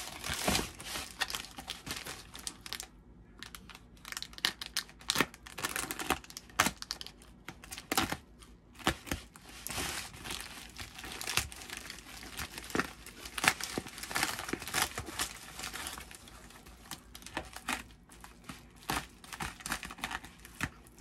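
Plastic bubble mailer being handled and opened: irregular crinkling and crackling of the poly film, with some tearing.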